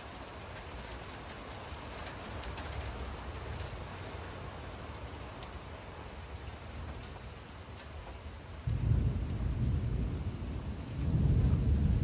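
Thunderstorm: steady rain hiss over a low rumble. About nine seconds in, a loud peal of thunder breaks suddenly and rolls, then swells again near the end.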